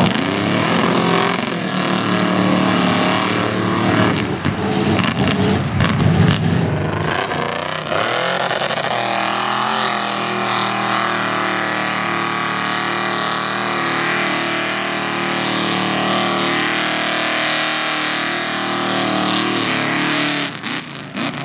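Mega truck's engine revving hard as it churns through a mud bog on spinning tires. The revs rise and fall for the first several seconds, then hold high and steady, and drop away near the end.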